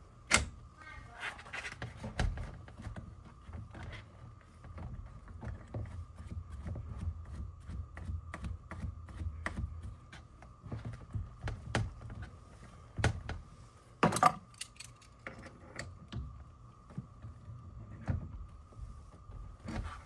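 Scattered light clicks, taps and clinks of hands threading a flare nut onto a copper refrigerant line and handling foam pipe insulation. There is a sharper knock near the start and a cluster of knocks about two-thirds of the way through, over a faint steady hum.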